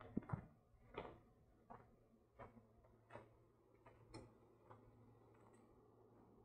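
Faint footsteps on dry, sandy ground: a soft crunch about every three-quarters of a second, the first few the loudest, then fading.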